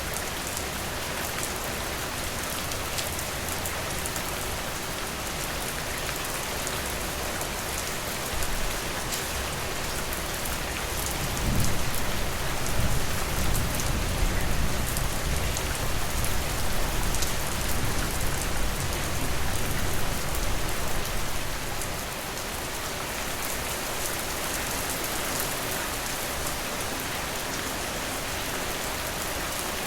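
Steady rain falling, an even hiss of many drops. From about a third of the way in, a low rumble rises under the rain for about ten seconds and then fades.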